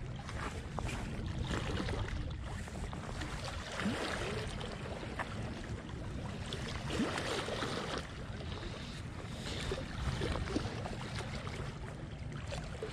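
Wind buffeting the microphone with a steady low rumble, over seawater washing and lapping.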